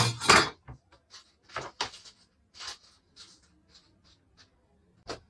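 A thin wooden board and a long metal straightedge being handled on a wooden workbench: a loud knock and scrape near the start, then scattered lighter knocks and short scrapes that thin out in the second half.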